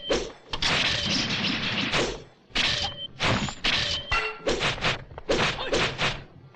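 Kung fu film fight sound effects: a rapid series of sharp whacks and crashing hits, with brief gaps between them.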